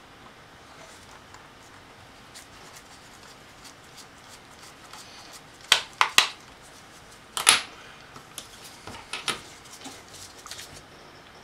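Small screwdriver clicking and scraping against the screws and metal case of a Fujitsu laptop SATA hard drive as the case screws are worked loose. Light ticks throughout, with a few sharp metal clicks about six seconds in and again a second and a half later, then softer clicks near the end.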